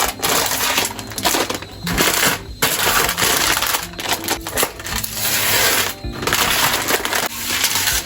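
Dry goods and packaging being handled in pantry storage: a dense, rattling hiss in stretches of a second or two, with short pauses between them. Soft background music runs underneath.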